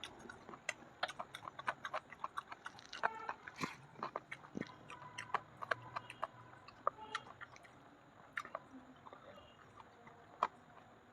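Close-up chewing and lip smacking from someone eating soft fried bread with chicken curry: irregular wet clicks and smacks, several a second.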